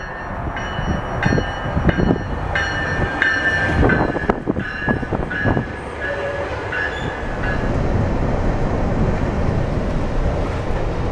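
A GO Transit bilevel commuter train moving past the platform: its wheels clatter and knock, and a high ringing tone repeats about twice a second. After about seven seconds the ringing stops and a steady train rumble remains.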